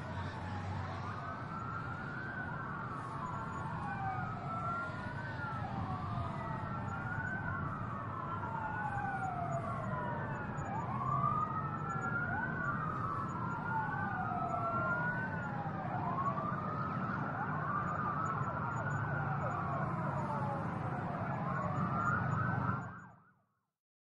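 Several emergency-vehicle sirens wailing at once and out of step, each sweep rising quickly and falling more slowly, over a low traffic rumble. The sound fades out near the end.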